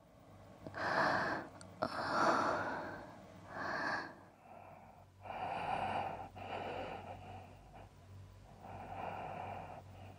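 A woman breathing heavily and gasping in her sleep, about six ragged breaths in a row: the distressed breathing of someone ill and having a nightmare.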